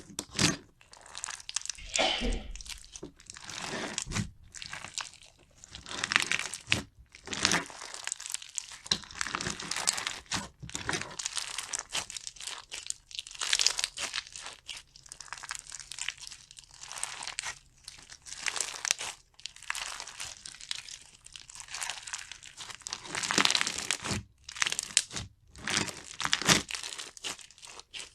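Slime being squeezed, pressed and pulled by hand, crackling and crinkling in irregular bursts about every half second to second.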